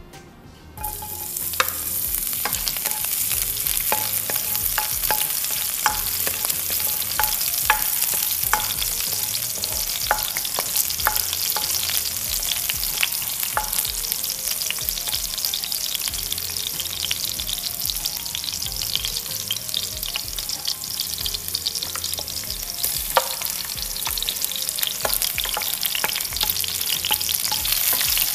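Chopped garlic sizzling in hot oil in a non-stick pan, the sizzle starting suddenly about a second in as the garlic goes in. A plastic spatula stirring it clicks and scrapes against the pan throughout.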